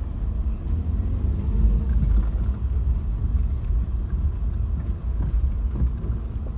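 Car heard from inside the cabin while creeping slowly along a rough dirt track: a steady low engine and tyre rumble.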